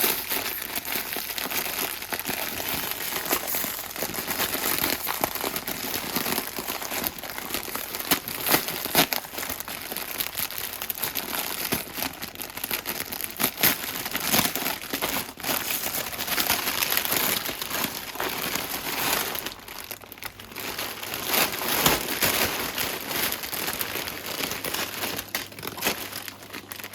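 Packaging wrappings being handled and pulled open, with continuous crinkling and rustling.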